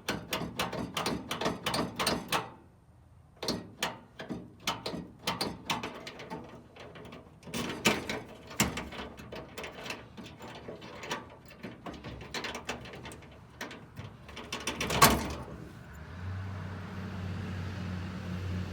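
Metal tools and parts handled and rattled, with many quick clicks and clatters and one loud clank near the end. A steady low hum starts just after it.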